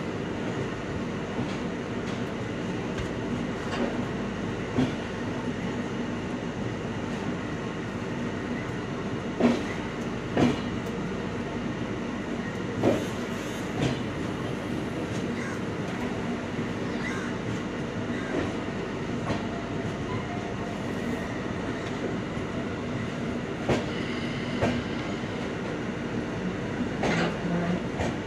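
Red Indian Railways LHB passenger coaches rolling past close by: a steady rumble of wheels on the rails, broken by a handful of short sharp clanks.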